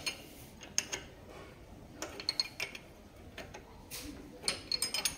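Metal spanner and spark-plug socket clinking and clicking in short irregular clusters as a motorcycle spark plug is worked loose anticlockwise.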